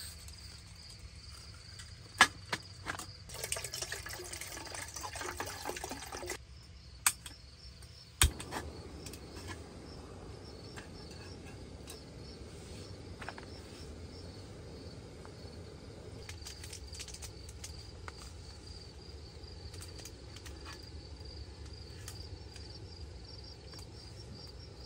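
Clinks and handling noise as a screw-on canister stove and titanium pot are set up, then a sharp ignition click about eight seconds in and the canister stove's burner hissing steadily from then on. Crickets chirp steadily throughout.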